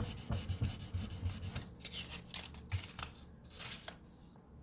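1200-grit sandpaper in a 3D-printed fret polisher rubbed quickly back and forth along a metal guitar fret. It makes a rapid run of scratchy sanding strokes that stop shortly before the end. This is a step in smoothing a fret left rough by filing.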